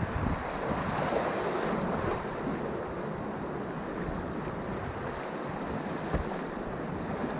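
Steady rushing of whitewater on a Class III river rapid, heard close up from a kayak, with some wind buffeting on the microphone.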